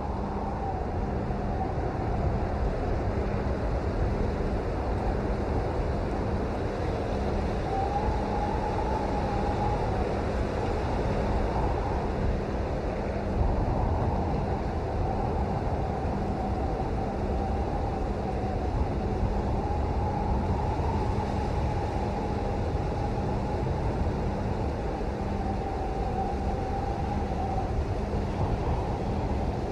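Steady rain with a deep low rumble under it and a faint wavering tone drifting in and out.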